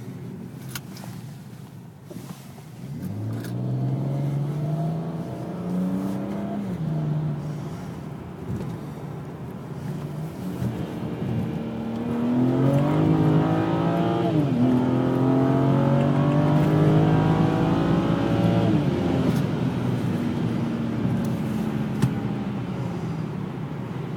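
BMW N54 twin-turbo straight-six pulling under throttle with an automatic gearbox: its pitch climbs, drops sharply at a gear change and climbs again, then eases to a steadier note near the end. This engine misfires under boost even after a harness update.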